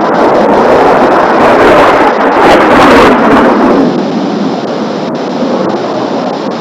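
Blue Impulse Kawasaki T-4 twin-turbofan jets passing, a loud jet roar that swells to its loudest about three seconds in and then fades.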